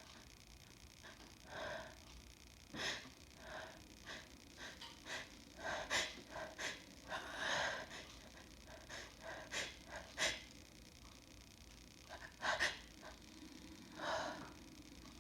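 A woman's repeated sharp sniffs and gasping breaths, a dozen or so short bursts with a few louder ones, as her nose reacts to snuffed chhinkni, a herbal sneezing powder.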